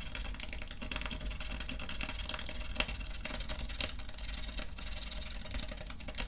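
A coin's edge scraping rapidly back and forth over the scratch-off stickers on a paper savings-challenge card: a steady dry scratching made of many quick strokes.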